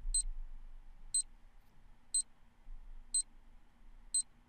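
Countdown timer sound effect: five short, high-pitched beeps, one each second, counting down the time left to answer a quiz question.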